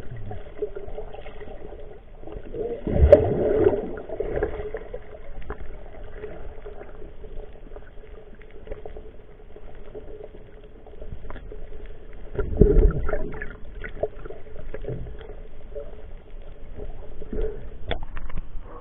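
Muffled underwater sound picked up by a submerged camera: a steady low hum with gurgling water. It swells louder about three seconds in and again about two-thirds of the way through.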